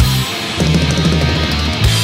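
Thrash metal music: a loud, heavily distorted electric guitar riff in short stop-start chugs, with drums.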